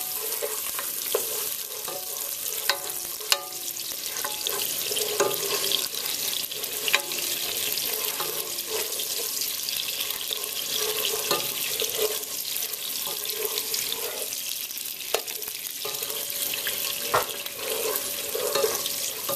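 Chopped onions and garlic sizzling in hot oil in a nonstick pot, stirred with a wooden spoon that knocks against the pot a few times.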